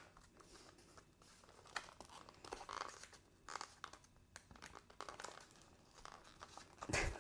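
Faint, intermittent crinkling and tearing of a trading-card blister pack's plastic and cardboard packaging being pried open by hand, in short scattered bursts.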